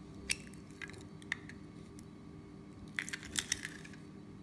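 A hen's egg being cracked by hand and opened into a small glass bowl: a few sharp clicks of shell early on, then a quick cluster of light clicks and clinks against the glass about three seconds in, over a steady low hum.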